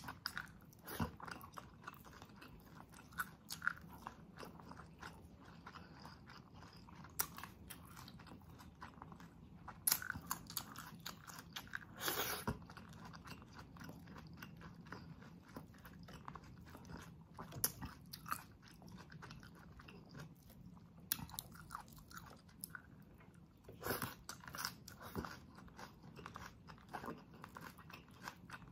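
Close-miked chewing and mouth sounds of a person eating sisig and rice by hand: irregular wet clicks and smacks, with a few louder crunches.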